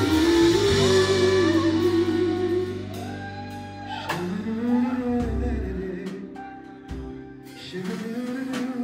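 Live jazz band playing: a saxophone leads with held and gliding notes over bass guitar, drum kit, keyboard and hollow-body electric guitar. The band drops in volume about three seconds in.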